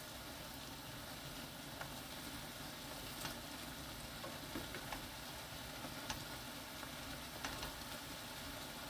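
Sweet braising liquid bubbling and sizzling around kabocha squash pieces in a pan as it reduces over high heat, with a few light clicks of a wooden spoon stirring against the pan.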